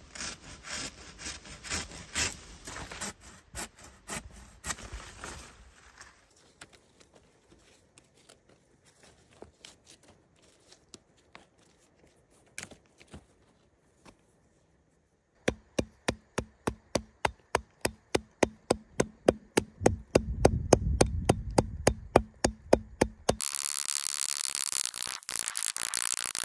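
Green wood and bark worked by hand: rustling and cutting at a leafy branch, then a run of sharp, regular strokes about three a second, and near the end a loud tearing hiss as bark is peeled off a green pole in long strips.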